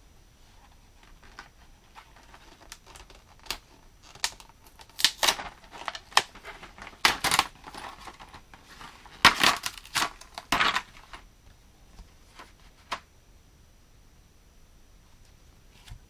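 Toy playset packaging being handled and opened: bursts of crinkling and tearing mixed with scattered clicks and taps, loudest in the middle and dying away near the end.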